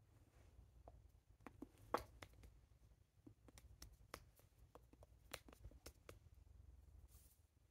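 Faint, scattered taps and brushes of hands meeting and rubbing on a jacket as a person signs in sign language, over a low steady room hum; the sharpest tap comes about two seconds in.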